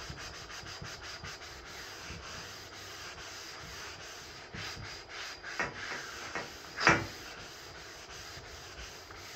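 Scotch-Brite abrasive pad scrubbed back and forth along a roll-cage tube in quick strokes, a dry rubbing scratch, cleaning mill scale and grease off the tube before welding and paint. One sharper, louder stroke about two-thirds of the way through.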